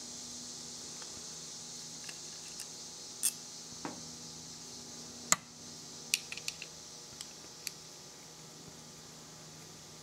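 Light clicks and clinks of small metal parts being handled: a motorcycle carburetor body and its float-bowl screws. The sharpest click comes about five seconds in, followed by a quick run of smaller clicks, over a faint steady hiss.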